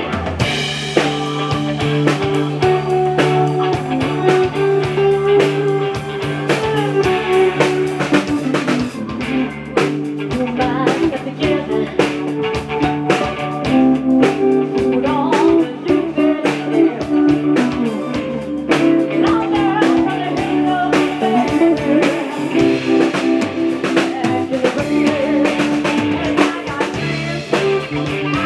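Blues-rock music: electric guitar playing over a drum kit with a steady beat.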